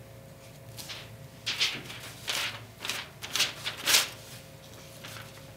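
Tint brush stroking lightener onto hair laid on an aluminium foil: a string of short brushing swishes, about six of them between one and a half and four seconds in.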